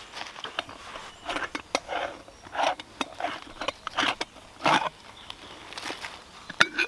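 Dry leaves and a cloth bag rustling as camping gear is handled on the forest floor, in a string of short irregular rustles, with a sharp click near the end.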